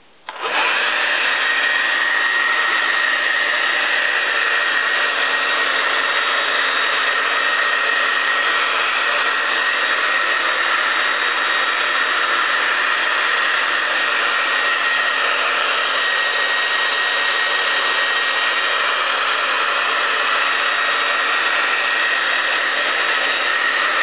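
Hand-held electric hair dryer switched on and running steadily: an even rush of blown air and motor noise with a steady high whine and a low hum.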